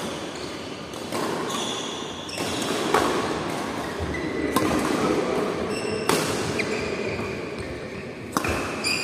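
Badminton rackets striking a shuttlecock back and forth in a rally: sharp smacks every second or two, with sneakers squeaking on the court floor between shots.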